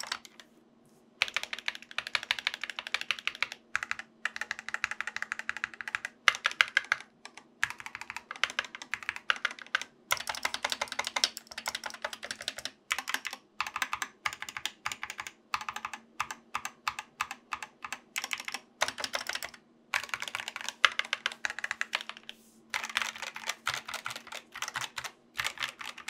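Fast typing on a compact mechanical keyboard fitted with Gateron optical linear switches, in runs of rapid key clacks broken by brief pauses. A faint steady hum sits underneath.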